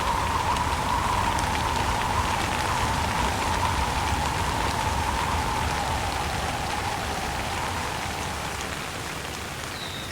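Steady rain falling, with wind carrying a whistling tone that slowly sinks in pitch. The whole sound grows gradually quieter toward the end.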